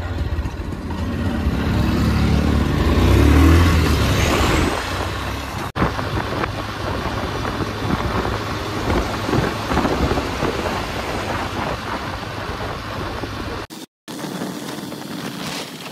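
Wind buffeting a helmet-mounted phone's microphone on a moving motorcycle, over the bike's engine running. A heavier low rumble fills the first few seconds. The sound drops out for a split second about six seconds in and again near the end.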